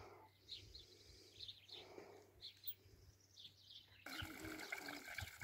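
Faint small birds chirping in short high notes, two or three a second. About four seconds in, the sound cuts abruptly to a louder, denser background.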